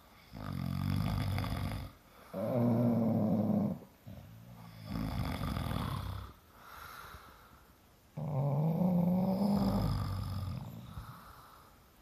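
Snoring from a sleeping man and his bulldog: about four long, loud snores of a second or two each, some with a steady buzzing pitch, separated by short quiet breaths.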